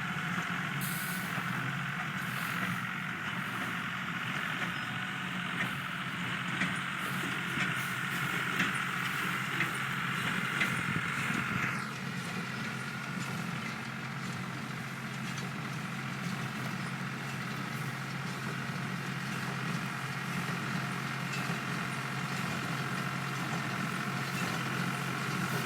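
Tractor engine running steadily while driving a square hay baler, with regular mechanical knocks about once a second in the first half. A higher whine drops in pitch and fades about halfway through while the engine keeps running.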